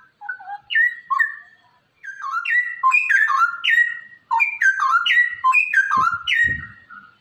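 Straw-headed bulbul (cucak rowo) singing: a fast, bubbling run of rich whistled phrases made of quick downward-slurred notes, broken by a short pause about two seconds in.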